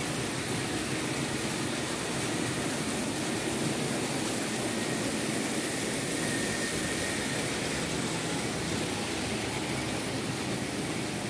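Märklin H0 model trains running on the layout: a steady whirr of the locomotive motors and a rumble of wheels on the track.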